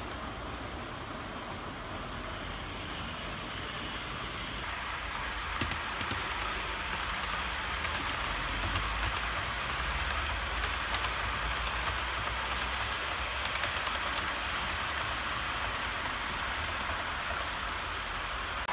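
Model trains running on a layout: the wheels rolling over the track give a steady hiss with small clicks, getting louder a few seconds in.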